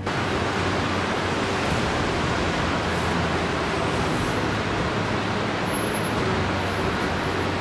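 Steady industrial machinery noise on a car assembly plant floor: an even hiss over a constant low hum.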